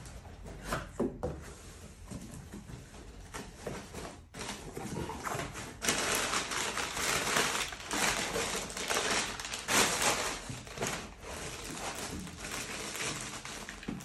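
Brown kraft packing paper rustling and crumpling as hands dig through a cardboard shipping box, loudest in the middle stretch; near the end a plastic bag of pump caps crinkles as it is lifted out.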